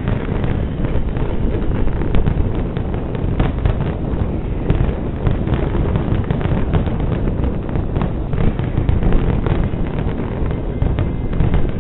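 Fireworks display: a dense, continuous barrage of aerial shells bursting, the deep booms running together with many sharp cracks on top.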